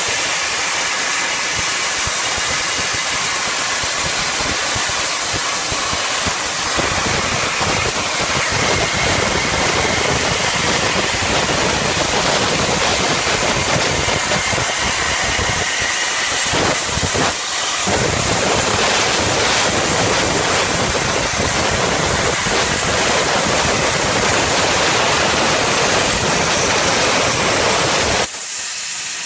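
CNC plasma cutting torch cutting steel plate: the plasma arc makes a loud, steady hiss, with a brief dip about 17 seconds in. Near the end the arc cuts off suddenly, leaving a quieter hiss.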